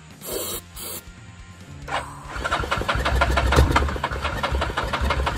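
Yamaha 660 ATV's single-cylinder four-stroke engine being cranked on its electric starter through a newly fitted solenoid and battery. After two short sharp noises in the first second, a fast, even chugging starts about two seconds in and keeps going.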